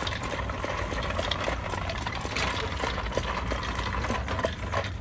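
Corn popper push toy rolling along concrete, with the balls inside its plastic dome popping and clattering in quick, irregular clicks, over a steady low hum.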